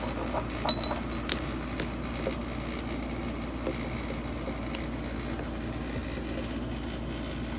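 A sharp metallic clink with a short high ring under a second in, then a lighter click, as small steel bolts and a driver bit are handled on a cam phaser sprocket. After that only a few faint handling ticks over a steady low hum.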